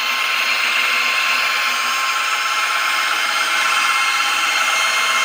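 Washing-machine direct-drive motor rig spinning steadily on its test cycle: an even whir with several steady high whining tones.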